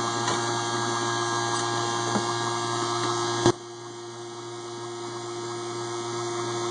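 Small HVAC vacuum pump running with a steady hum, drawing a vacuum down through an investment-casting flask just before the pour. A single sharp click about halfway through, after which the sound drops and slowly builds back.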